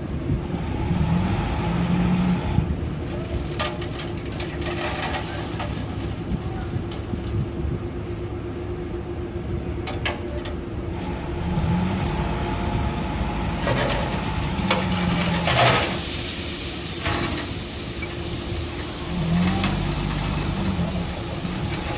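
Mini bulldozer working: a steady machine drone, with a high whine that rises and falls three times as it moves or pushes.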